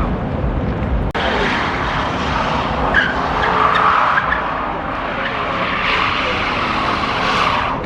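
Car drifting, its tyres squealing and skidding under a running engine, building louder near the end.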